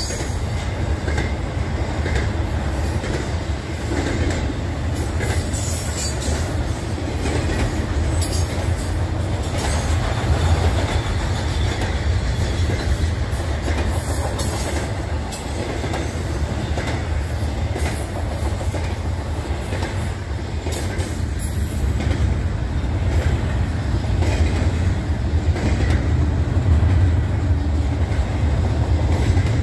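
Union Pacific intermodal freight train rolling past: a steady low rumble of wheels on the rails, with scattered clacks.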